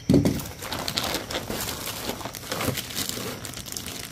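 Packaging crinkling and crackling in irregular bursts as a wrapped packet of gummy candy is handled and opened. There is a short low thump right at the start.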